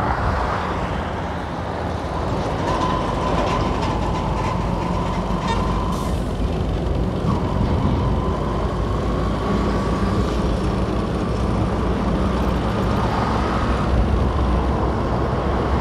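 Motorcycle riding at steady cruising speed, its engine and wind and road noise heard through a helmet-mounted camera. A container truck runs just ahead and then alongside near the end.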